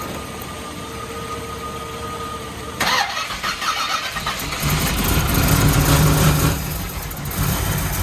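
Supercharged small-block Chevy V8 being cranked and firing up: a steady thin whine for the first few seconds, a sudden change about three seconds in as it cranks, then the engine catching and running with a loud low rumble from about four and a half seconds.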